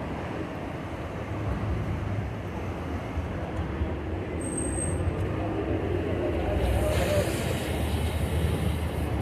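Elevated subway train on the steel el structure overhead, a steady rumble that swells into a louder rushing clatter over the second half. A brief thin high tone comes about four and a half seconds in.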